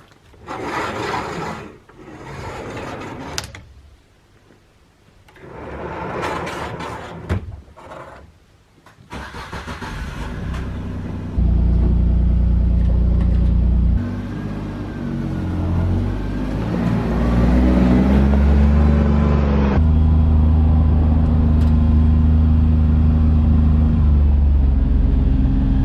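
Several bursts of rushing, scraping noise, then, about ten seconds in, a Kubota tractor engine cranks, starts and runs steadily, its speed changing a few times.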